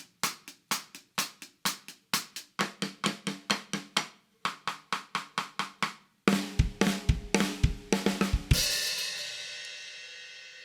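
CMC Maple x Bubinga 14x6.5-inch snare drum (maple and bubinga shell) played in an even run of about four strokes a second, then a louder drum-kit fill with bass drum kicks that ends on a cymbal crash ringing out and slowly fading.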